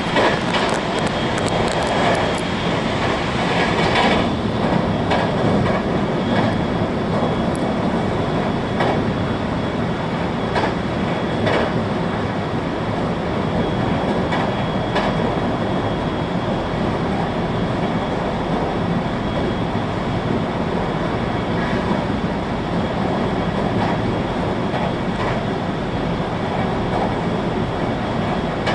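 521-series electric multiple unit running at speed, heard from inside the passenger car: a steady rumble of wheels on rail, with occasional sharp clacks over rail joints, more of them in the first half.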